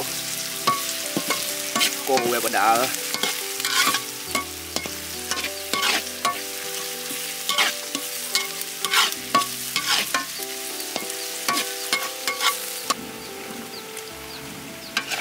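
Food sizzling in hot oil in a frying pan while being stirred, with frequent sharp clicks and scrapes of the utensil against the pan.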